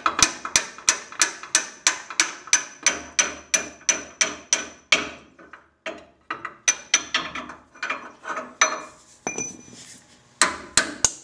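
Hammer blows on metal, about three a second with a short ringing after each, pausing twice, as a control arm bushing shell is tapped out of the arm.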